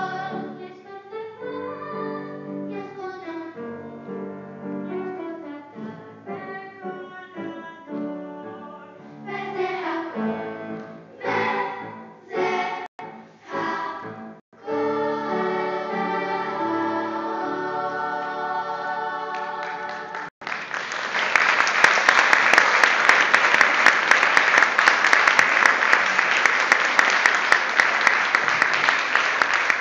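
Children's choir singing, the song closing with a long held chord that stops abruptly about two-thirds of the way through. The audience then breaks into loud, steady applause.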